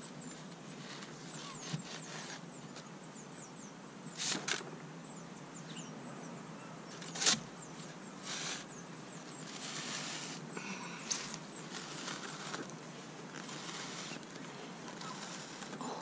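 Plastic pipe being twisted and forced down into a tub of builder's sharp sand: irregular spurts of gritty scraping and crunching, with a few sharp knocks. It takes a fair bit of pressure to get the pipe down through the sand.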